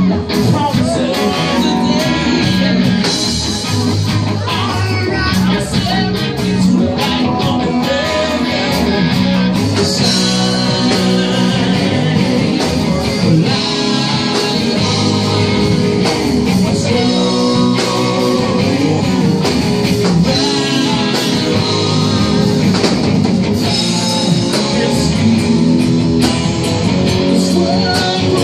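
Live rock band playing: electric guitars and a drum kit over a loud, steady low end, with singing.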